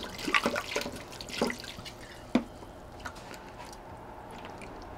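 Red wine glugging and splashing as it is poured from a bottle into a plastic container of short ribs, with one sharp knock a little over two seconds in.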